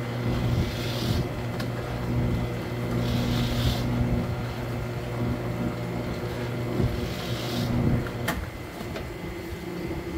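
Electric fish-slicing machine with 2 mm blades running with a steady motor hum as fish fillets are sliced, with three short hisses along the way. About eight seconds in it is switched off with a click and the hum stops.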